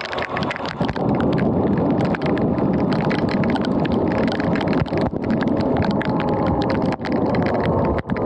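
Heavy rain and tyre spray on wet pavement under a moving Sur-Ron X electric dirt bike, thick with the clicks of raindrops hitting the camera. A faint whine from the bike's electric motor fades after the first second.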